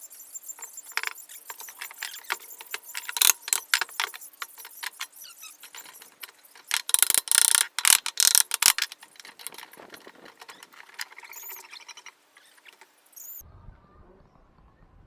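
A run of quick mechanical clicks and knocks, loudest in a burst about seven to nine seconds in, cut off suddenly near the end by a low rumble.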